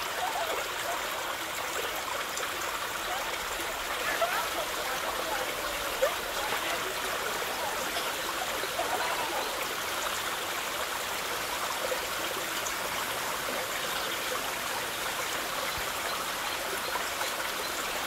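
Waterfall pouring onto rocks: a steady, even rush of falling water, with one brief louder hit about six seconds in.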